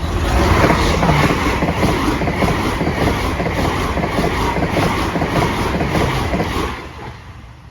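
A fast train passing through at speed without stopping, its wheels clattering over the rail joints in a quick, even run of clacks. It is loud for about seven seconds, then falls away sharply near the end as it passes.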